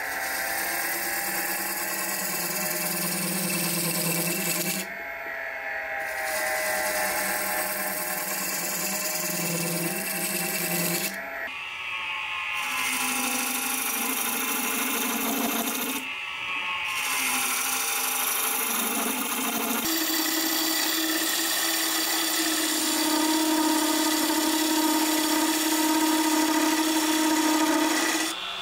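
Wood lathe spinning a figured maple bowl blank while a turning gouge cuts it: a steady hum with the hiss and scrape of the tool peeling off shavings. The sound breaks off and shifts in pitch a few times.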